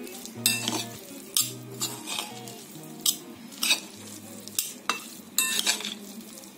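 A metal spoon stirring and scraping through a salad of peas, diced carrots and tuna in a glass bowl, with irregular clinks and scrapes about once a second.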